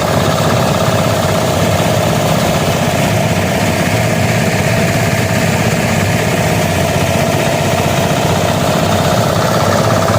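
Engine of a rice harvesting machine running steadily at a constant speed, with an even hum over a low rumble.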